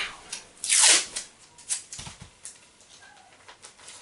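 Adhesive tape being pulled off its roll with one loud rip about a second in, followed by a few shorter, quieter rasps as more tape is pulled and torn.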